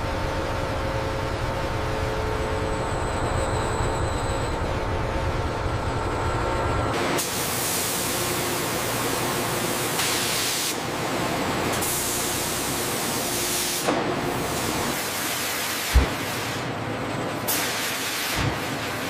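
Factory machinery: a low steady rumble with faint humming tones, giving way about seven seconds in to a loud hiss like a cutting machine spraying sparks, which shifts several times. A sharp knock sounds near the end.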